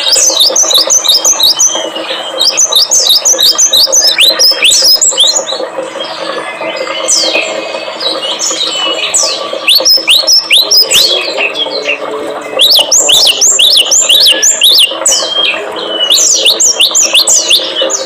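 Small songbirds calling in rapid bursts of sharp, high chirps, several a second, thinning to scattered calls in the middle, over a steady low drone.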